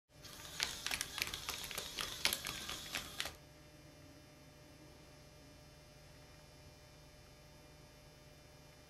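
Small tracked robot's geared motors whirring and its plastic treads clattering with sharp clicks as it drives across a wooden floor, stopping suddenly a little over three seconds in. A faint steady hum remains after it stops.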